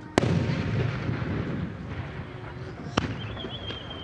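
Japanese aerial firework shell bursting with a loud bang about a fifth of a second in, the boom rolling and echoing for a couple of seconds, then a second, sharper report near three seconds. Near the end a thin, high whistle begins and slowly drops in pitch as the next whistling shell climbs.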